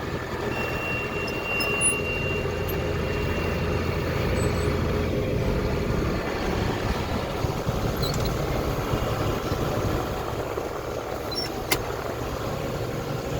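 Tractor engine running steadily while pulling a round baler through hay. A thin, steady high tone sounds for about three seconds near the start, and there is a sharp click near the end.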